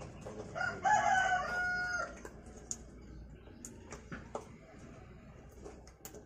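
A rooster crows once, starting about half a second in and lasting about a second and a half, the pitch held and dropping slightly at the end. After it there are only faint scattered ticks and rustles.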